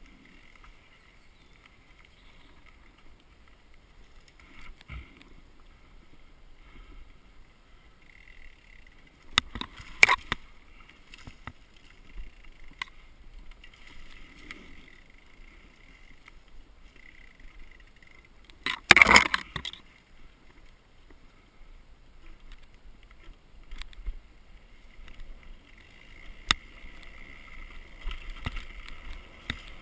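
Downhill mountain bike running fast down a leaf-strewn dirt trail: steady tyre and trail noise with the bike rattling over bumps. Sharp loud clattering knocks come about ten seconds in and again, loudest, at about two thirds of the way through, with smaller knocks between.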